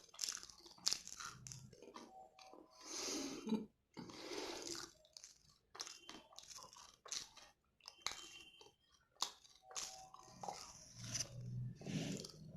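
Close-miked crunching and chewing of kadalai mittai, a hard peanut-and-jaggery candy, as irregular crisp bites and chews.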